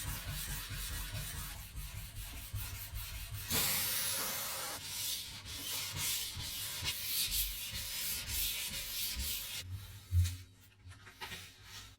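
Hand sanding with sandpaper in quick back-and-forth strokes, louder for a while a few seconds in, then stopping about ten seconds in with a soft thud.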